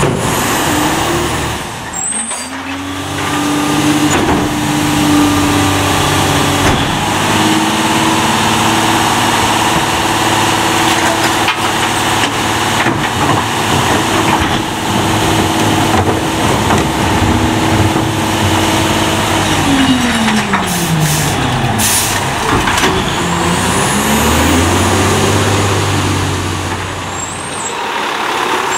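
Diesel engine of a Leach rear-loader garbage truck, revved up by hand and held high to drive the hydraulic packer through its cycle. The revs fall away about twenty seconds in, then climb again as the truck pulls off.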